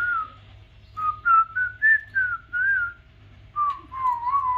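A parrot whistling a run of short, clear notes that slide up and down, then after a brief pause a longer wavering note near the end. A faint steady hum sits underneath.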